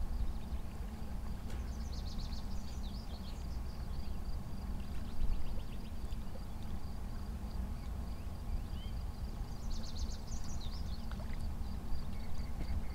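Steady low outdoor rumble of open riverbank ambience. Short bursts of high chirping come about two seconds in and again about ten seconds in, over a faint steady high tone.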